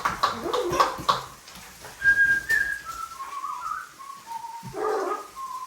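A few short harsh calls, then a string of clear whistled notes stepping up and down in pitch, like a wandering tune.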